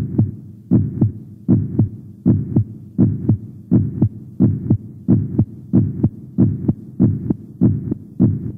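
A heartbeat: a steady double thump, lub-dub, repeating a little faster than once a second.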